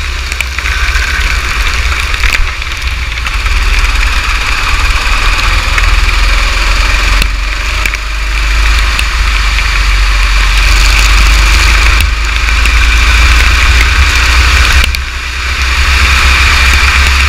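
Kart engine running at speed on a wet track, heard through heavy wind and rain noise on an onboard camera's microphone. The sound drops briefly about three times, as though the throttle is lifted, then picks up again.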